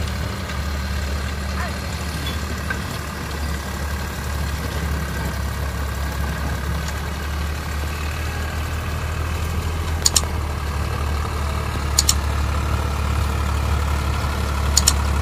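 Deutz-Fahr tractor's diesel engine running steadily while working a rotary tiller through the soil. Sharp double clicks come three times in the second half.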